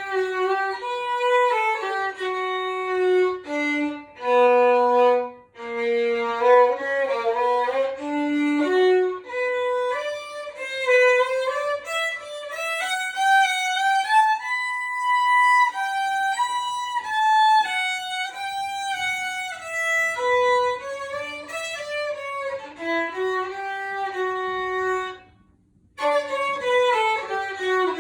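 Solo violin playing a melody of held notes with slides between them. The sound cuts out for about a second near the end, then the playing resumes.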